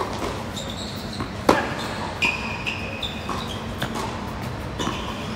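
A doubles tennis rally on a hard court: a run of sharp racquet-on-ball hits and ball bounces, about six in all and the loudest about one and a half seconds in, with a few short, high-pitched squeaks between them.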